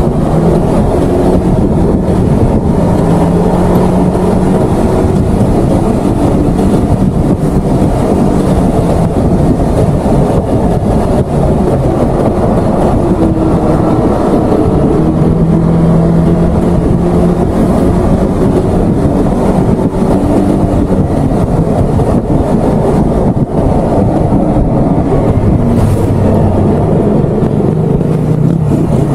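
Maxi-scooter riding at road speed: its engine running steadily under a loud, constant rush of wind on the microphone, the engine note drifting slightly up and down.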